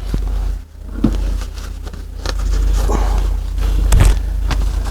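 Upholstery material being shifted and handled at a sewing machine as the needle is lifted at a corner: a few sharp knocks and rustles over a steady low hum.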